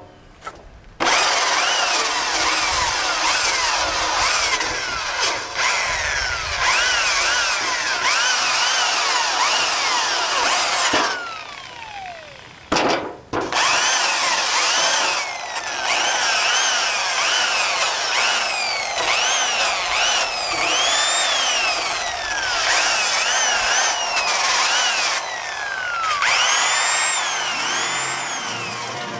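Electric angle grinder grinding rust off a corroded steel mower deck. Its pitch keeps dipping and recovering as the attachment bites the metal. Around the middle the grinder spins down with a falling whine, then starts again and carries on.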